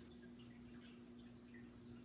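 Near silence: room tone with a steady low electrical hum and a few faint light ticks.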